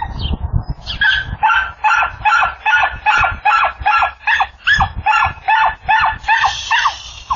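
An animal calling over and over in a fast, even series of short, loud calls, about two and a half a second, starting about a second in.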